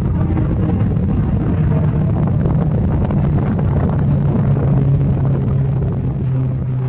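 C-12 Huron's twin PT6A turboprop engines and propellers at climb power as the aircraft passes overhead: a loud, steady propeller drone over a rumble, its low hum dropping slightly in pitch in the second half.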